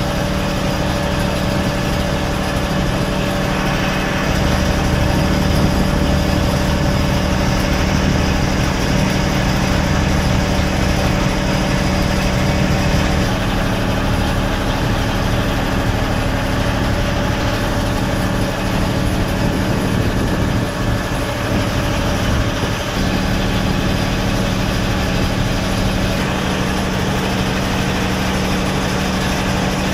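A tour boat's engine running steadily under way, a constant drone.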